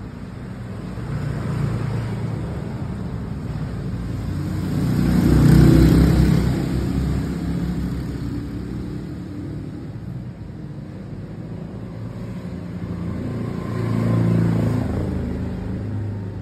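Motor vehicle engines passing by, swelling up and fading away twice: loudest about six seconds in and again about fourteen seconds in.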